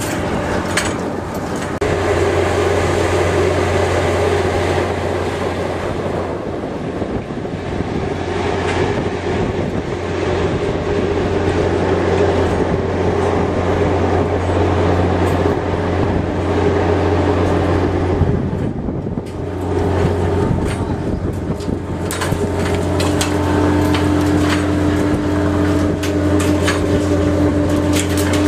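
Fishing boat's engine and deck machinery running: a steady low hum with a held whine above it, and a second, lower whine coming in about 23 seconds in. Light clicks and knocks of gear near the end.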